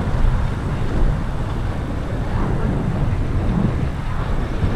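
Steady low rumble of city traffic and riding noise picked up by a GoPro on a moving bicycle.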